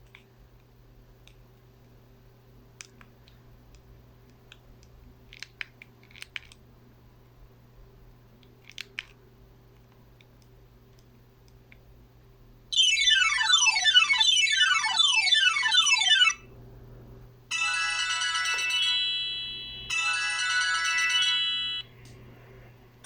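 A steady low hum with a few faint clicks for about the first twelve seconds, then Sony Ericsson T630 ringtones playing from the phone's speaker. The first is a tune of rapid falling runs repeated several times; after a short break comes a second tune of held chiming notes.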